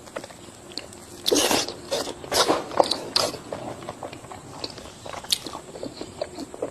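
Close-up crunchy biting and chewing of food, with sharp crunches loudest about a second and a half in and again around two and a half and five seconds in.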